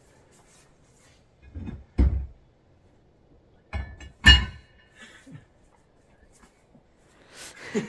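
A few dull thunks of things being set into the open rear hatch of a car: one about two seconds in, then a louder pair of knocks with a brief ringing about four seconds in.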